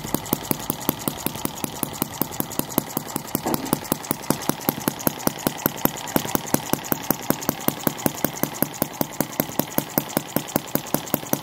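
1cc sideshaft model engine running steadily, with a sharp, even clicking beat of about five a second.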